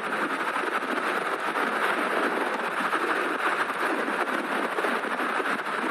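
Steady rush of wind and tyre noise from riding a Stealth Bomber electric motorbike at about 50 mph.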